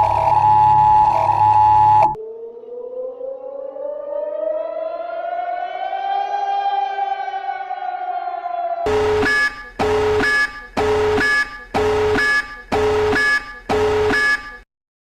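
A run of electronic emergency-alert alarm tones. A steady two-tone alarm with a low hum cuts off about two seconds in. A siren wail follows, rising slowly and then falling. Near the end come six pulsed alarm tones, about one a second.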